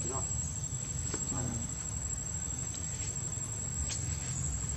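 Steady high-pitched drone of insects, with a low rumble underneath and two short vocal calls, one at the start and one about a second in.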